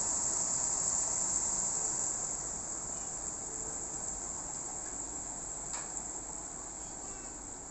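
A steady high-pitched insect chorus, unbroken throughout, over a soft even hiss of rain; the whole sound slowly gets quieter.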